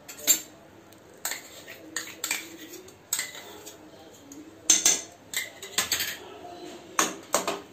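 A metal spoon clinks and scrapes against a steel bowl and the rim of an aluminium pan as thick mango pulp is scraped out into the pan. The clinks come irregularly, a dozen or so short metallic knocks and scrapes, loudest just after the start and about five seconds in.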